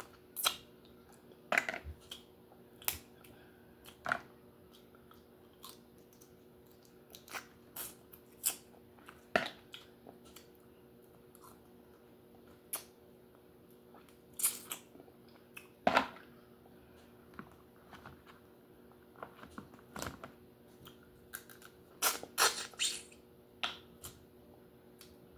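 Close-miked eating sounds of a lobster meal: irregular sharp clicks and cracks from chewing and working on the lobster, some in quick clusters, loudest near the middle and toward the end, over a faint steady hum.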